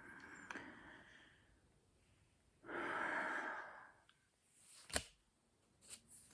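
A person breathing out audibly, with one long sigh-like exhale about three seconds in, followed by a sharp click near the end.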